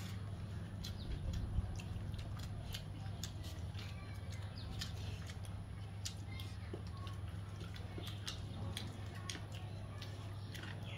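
Close-up eating sounds of a man eating rice and meat by hand: wet chewing and lip smacks heard as many short clicks, over a steady low hum.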